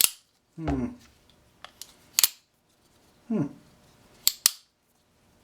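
Gerber Gator folding knife's lockback blade being opened and closed by hand. Sharp clicks come as the lock engages and the blade snaps shut, four in all, two close together near the end, with short sliding sounds from the blade swinging on its pivot in between.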